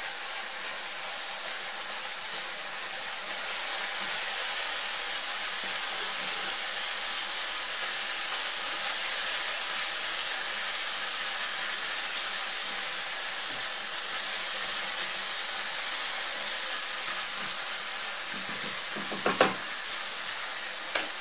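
Ground beef and tomato sofrito sizzling in a non-stick frying pan, stirred with a silicone spatula; the steady sizzle grows louder a few seconds in. A single short knock near the end.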